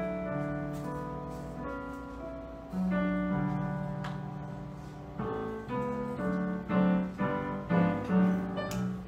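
Piano music: slow held chords that fade away, then, from about five seconds in, a livelier pattern of repeated chords.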